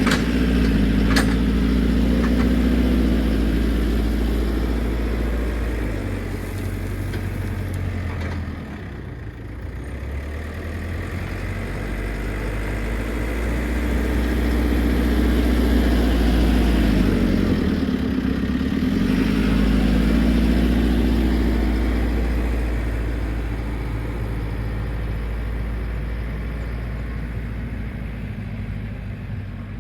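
JCB 4CX backhoe loader's diesel engine running as it works the front bucket, rising and falling with the load: it drops back about a third of the way in, swells twice past the middle, then eases off toward the end. A sharp click about a second in.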